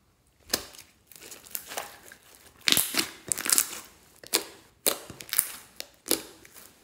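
Glossy slime studded with small beads being stretched, pressed and folded by hand, giving a string of wet crackles and pops. The loudest bunch comes about three seconds in, with more bursts near four and a half to five and a half seconds and a last one just after six.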